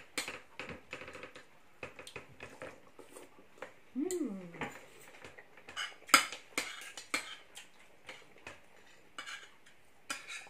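Knives and forks scraping and clinking against plates in irregular clicks as two people cut and eat a meal. About four seconds in comes a brief vocal sound that falls in pitch.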